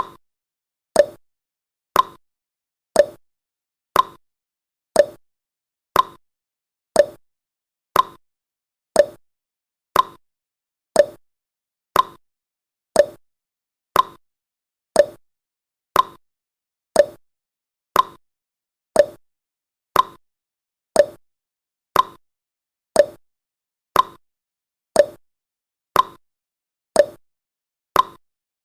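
Clock-style tick sound effect of a countdown timer, one short, sharp tick every second with silence between.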